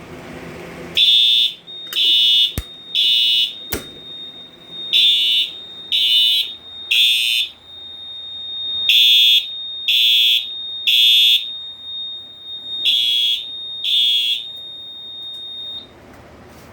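Fire alarm horns on a Silent Knight 5820XL system sounding the temporal-3 evacuation pattern after a manual pull station is tripped. Four groups of loud, high-pitched blasts, three to a group with the last group cut to two, over a steady high-pitched tone. Two sharp clicks come about three seconds in, and all the sound cuts off near the end.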